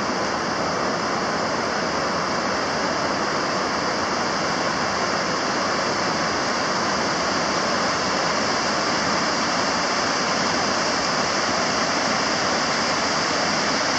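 River in flood rushing steadily over a low weir's wide spillway ramp, a constant dense noise of falling, churning water.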